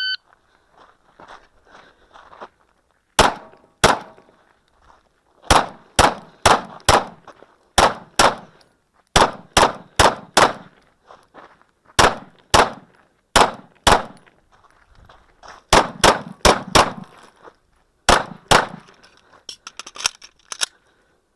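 Shot timer beeps once at the start. About three seconds later a 9mm Smith & Wesson M&P 2.0 pistol fires about twenty rapid shots, mostly in quick pairs and runs of four, with short pauses between strings as the shooter moves between targets.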